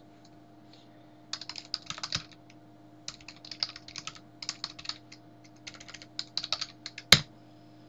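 Typing on a computer keyboard: irregular runs of keystrokes, then one harder single key press about seven seconds in, over a faint steady hum.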